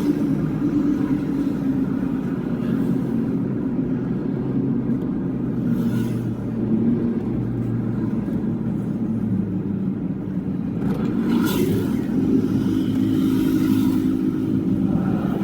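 Toyota Hilux on the move, its engine and road noise heard from inside the cab, running steadily with small changes in engine speed. The freshly repaired automatic transmission is pulling with no grinding.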